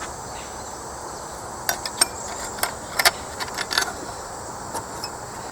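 Scattered light clicks and taps of small chainsaw parts being handled and fitted back onto an old Homelite 350 during reassembly, a few close together in the second half.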